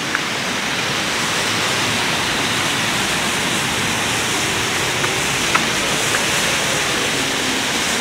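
Steady rush of a small waterfall and stream pouring over rocks, growing a little louder over the first couple of seconds, with a few faint clicks.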